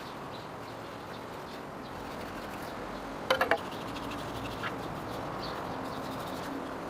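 Steady background hiss, broken about three seconds in by a quick run of three or four sharp clicks or taps, with one fainter click a little later.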